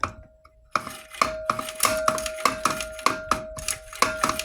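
Rapid metallic clicking and knocking, about three or four a second, from a motorized bicycle's pedal crank being turned against the engine's protruding clutch cover, over a faint steady ringing tone. It starts about a second in.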